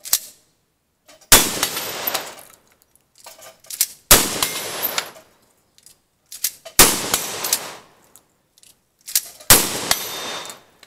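Gunshots from a cowboy action shooter's shouldered long gun: a short crack right at the start, then four loud shots evenly spaced about two and a half seconds apart, each ringing out for about a second.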